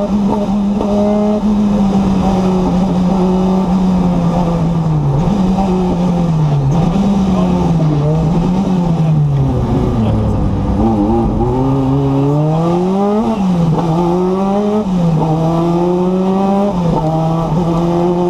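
Renault 5 Turbo rally car's turbocharged four-cylinder engine, heard from inside the cabin, driven hard through the gears: its pitch climbs and drops again with each shift. Around ten seconds in it falls low as the car slows for a tight bend, then climbs in one long pull.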